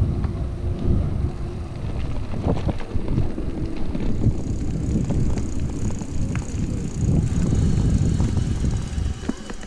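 Wind rumbling on the microphone and tyre noise of a Carrera Subway E 2.0 electric bike being ridden, with scattered small clicks and knocks. A faint high steady whine joins about halfway, and the noise drops near the end as the bike slows.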